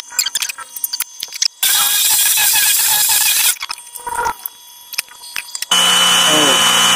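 Clicks and knocks of parts being handled, a loud hissing rush lasting about two seconds, then an electric pressure washer's motor and pump start near the end and run steadily with a low hum and a high whine, as the machine is test-run after its unloader-valve o-ring was replaced.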